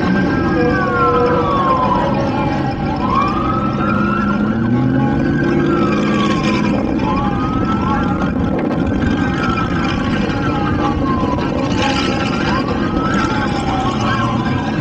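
Several sirens wailing at once, each rising and falling in pitch every second or two, out of step with one another, over the steady running of vehicle engines.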